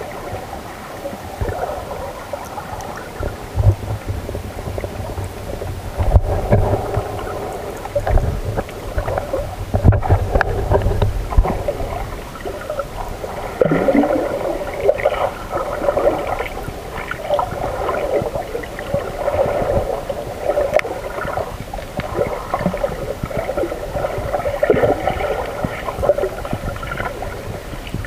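Muffled underwater sound picked up by a submerged camera: uneven gurgling and sloshing water with low thumps and rumbles, strongest in the first half.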